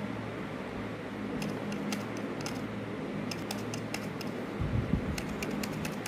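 A folded paper dragon puppet's jaws being worked open and shut, making clusters of light clicks over a steady low hum. A low thump comes nearly five seconds in.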